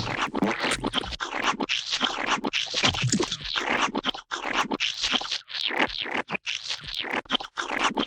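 Paint-fight glop sound effect: wet paint splattering and squelching in a dense, irregular run of short noisy splats separated by brief gaps.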